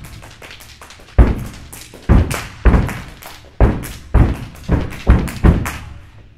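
Step team stomping on a portable stage riser and clapping, about ten sharp hits with deep thuds in an uneven, syncopated rhythm starting about a second in.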